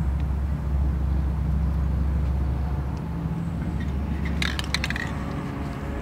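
A steady low mechanical hum, with a quick run of light metallic clinks about four and a half seconds in.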